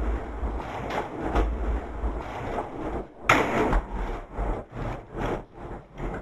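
Sound-design collage of irregular scraping and knocking noises over a deep low rumble. It breaks off for an instant about three seconds in and comes back louder.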